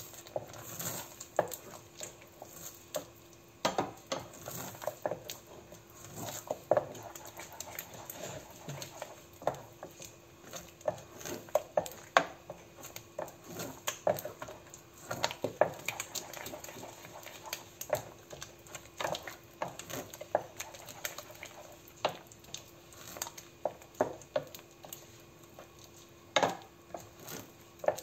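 Wooden spoon stirring a thick béchamel sauce in a stainless steel saucepan: irregular knocks and scrapes of the spoon against the pan, over a faint steady hum.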